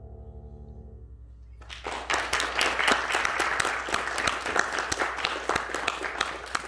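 The last chord of an upright piano dying away, then an audience applauding from about two seconds in.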